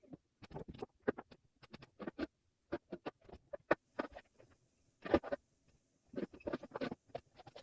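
Household handling sounds: an irregular, rapid string of small knocks, clicks and rustles as objects are moved about. The sharpest knocks come about four and five seconds in.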